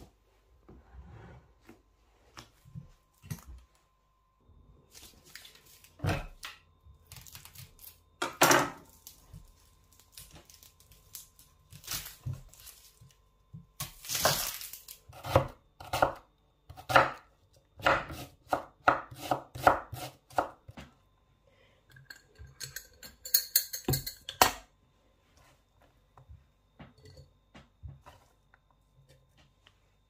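Kitchen knife slicing a red onion on a wooden cutting board: a run of knocks as the blade meets the board, a few a second at the busiest.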